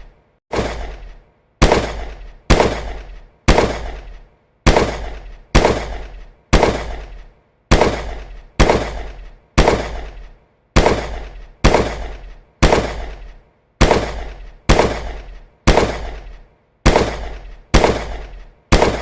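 Gunshot sound effects: single shots fired one at a time, about one a second, each a sharp bang with a deep boom that fades away before the next.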